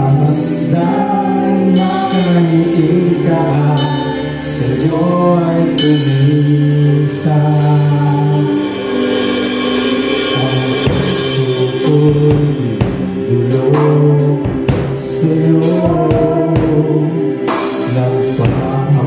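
Live worship band performing a praise song: a male lead singer sings over keyboard, electric guitar and bass guitar.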